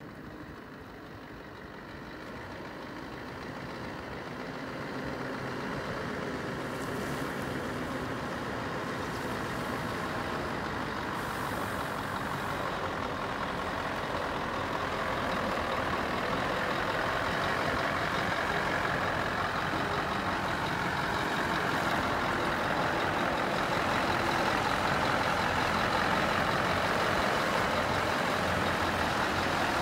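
Scania R500 truck's V8 diesel running at low speed as the truck moves slowly closer, growing steadily louder over the first half and then holding level.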